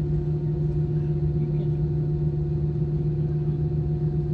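Airbus A320 airliner humming steadily: one unchanging pitched drone with its overtones over a low rumble, with no rise or fall.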